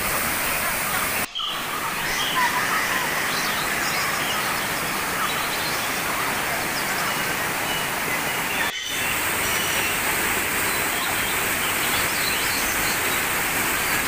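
Waterfall water rushing and splashing over rocks, a steady hiss. The sound drops out very briefly twice where the footage is cut, with faint short chirps over the water.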